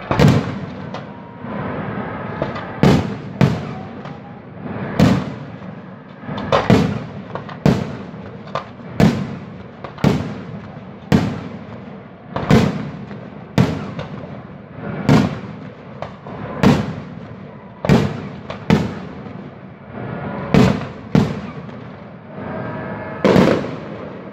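Aerial fireworks shells bursting overhead: a steady run of about eighteen sharp bangs, roughly one every second or so, each trailing off in an echo.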